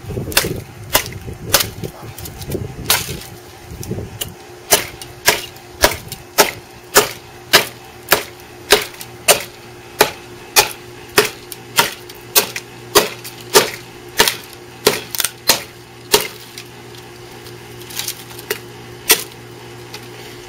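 Husqvarna hatchet chopping into a dead, very hard peach-wood branch: a long run of sharp strikes at nearly two a second, then a short pause and a few more strikes near the end. A steady low hum runs underneath.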